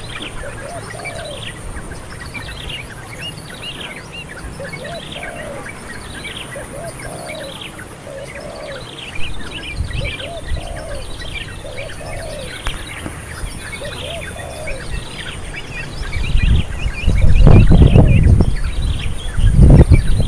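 Wild birds calling: a low, arched call repeats about once a second under many quick, high, falling chirps, with a steady high whine behind them. From about three-quarters of the way in, a loud low rumble takes over.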